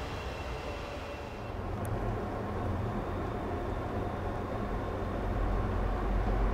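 Diesel freight train rumbling. About two seconds in the sound changes to a deep diesel locomotive engine drone that grows steadily louder as the locomotives approach.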